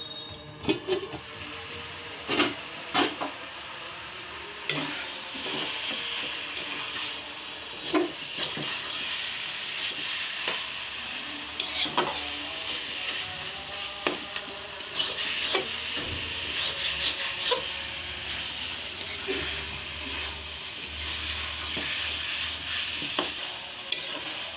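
Banana flower frying in a pan and sizzling steadily, while a spatula stirs it and knocks and scrapes against the pan every second or few.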